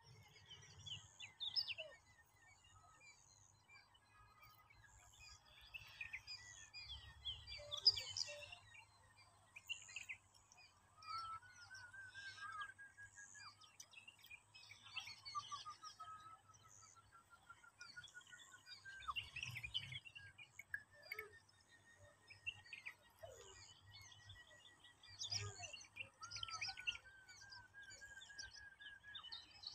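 Birds chirping and calling, among them a run of quick repeated notes that climb steadily in pitch, heard three times.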